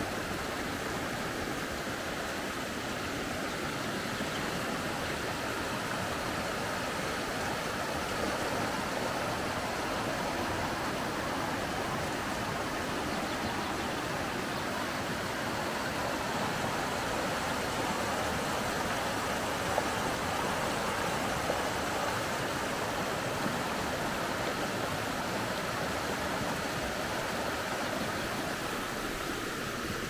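Shallow mountain stream rushing over rocks and stones, a steady hiss of running water.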